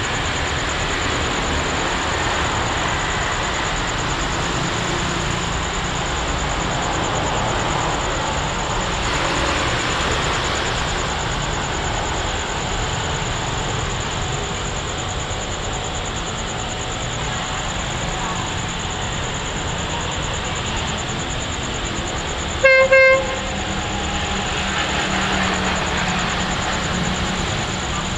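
Diesel-electric locomotive (CRRC CDA5B1 "QSY") approaching with a steady rumble, then sounding its horn briefly, two quick toots, about three quarters of the way in. Its engine drone grows louder near the end. A thin, steady high-pitched whine runs throughout.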